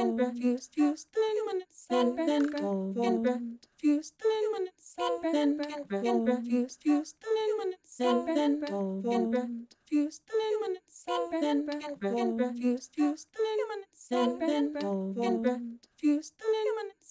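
Experimental electronic music built from short, chopped fragments of a voice-like sampled sound, each cut off abruptly, played in a stuttering phrase that repeats about every six seconds, live-sampled and triggered from a pad controller.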